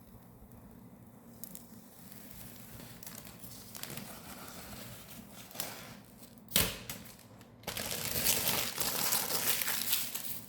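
Plastic packaging crinkling and rustling as it is handled, with one sharp snap about six and a half seconds in and louder, denser crinkling over the last few seconds.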